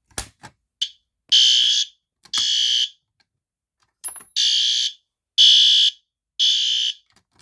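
System Sensor P2R horn sounding in half-second blasts, two and then, after a pause, three more, the temporal-three evacuation pattern, after a few short clicks at the start.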